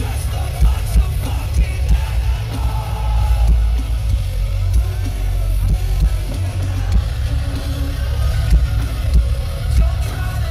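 Metalcore band playing live, heard from the crowd: drums and distorted guitars over a heavy booming low end, with sung vocals.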